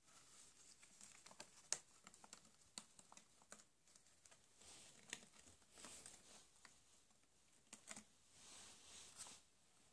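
Lop-eared rabbit gnawing and tugging at a cardboard Toblerone box: faint, irregular crunching clicks and cardboard rustling, with one sharper snap nearly two seconds in.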